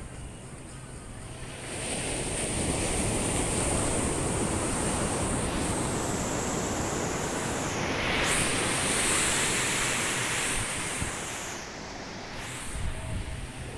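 Sea waves breaking and washing up on a sandy beach. The surf builds about two seconds in, is loudest for a surge around the middle, and eases near the end.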